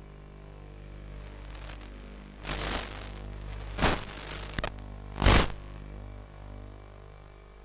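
Analog FPV video-receiver audio: a steady electrical buzz with four sudden bursts of static about two and a half to five and a half seconds in, the last the loudest, as the video link breaks up at range.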